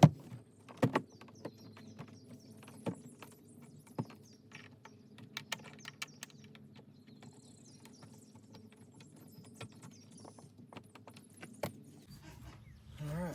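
Scattered clicks and light knocks of hand tools and metal mounting hardware being handled, with a sharp knock at the start.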